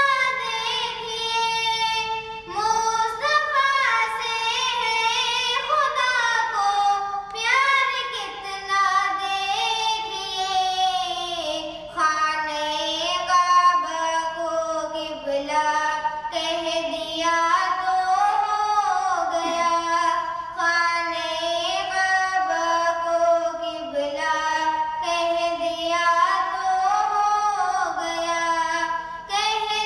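A girl singing an Urdu naat (devotional song in praise of the Prophet) into a microphone, a continuous melody with long, gliding held notes.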